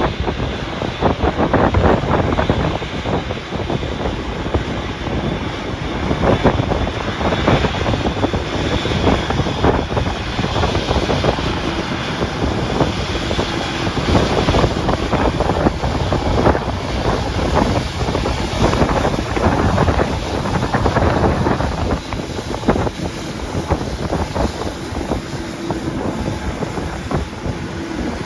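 Strong gusty wind buffeting the microphone: a loud, uneven rumbling rush with constant irregular thumps.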